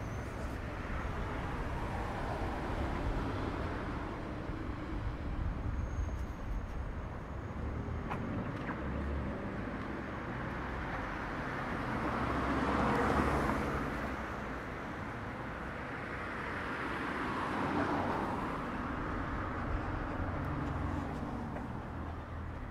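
Street traffic: a steady low rumble of vehicles, with a car passing close by about halfway through and another a few seconds later.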